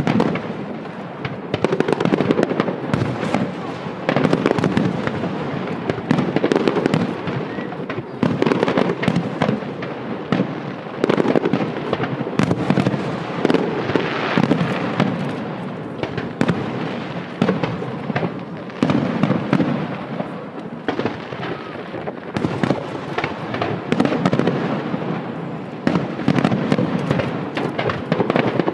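Aerial fireworks shells bursting one after another in a dense barrage, many sharp bangs overlapping. The volume swells and eases every few seconds.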